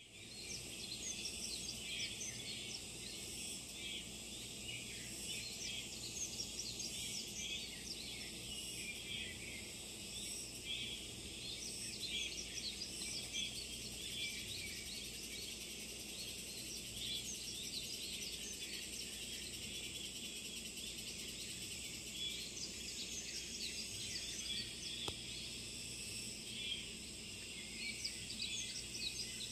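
Outdoor summer ambience: many birds chirping over a steady background of calling insects.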